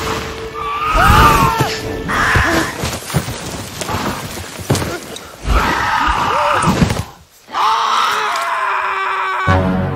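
Film soundtrack montage: strained, bending cries and screams over thuds and music, with a short dip about seven seconds in. Near the end a held chord of soft mallet-percussion music begins.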